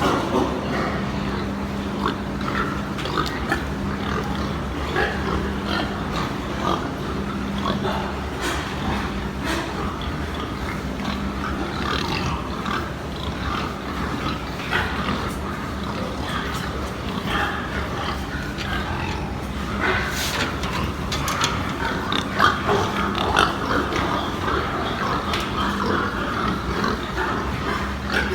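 Pigs in pens grunting and squealing in short, irregular calls, a few louder ones past the middle, over a steady low hum.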